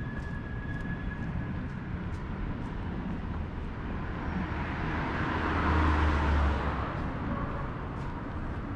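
Street noise as a motor vehicle passes close by, swelling to a peak about six seconds in and then fading away, over steady walking footsteps.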